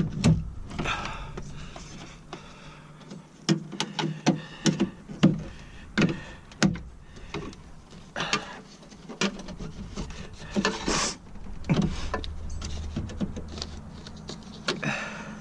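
Irregular clicks, knocks and rubbing of plastic and metal parts as the handle mechanism inside a truck door is worked loose by hand, with a short scraping rattle about eleven seconds in. A low steady hum comes in near the end.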